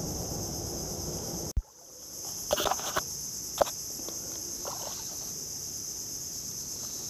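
Guitar background music runs for about the first second and a half and ends at a sharp cut. From then on a steady high insect chorus fills the air, with a few short knocks about a second and two seconds after the cut.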